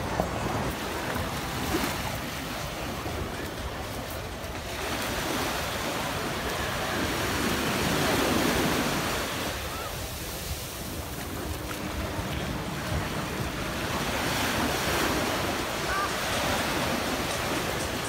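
Small waves breaking and washing up a sandy shore, swelling and ebbing with each wave, with wind buffeting the microphone.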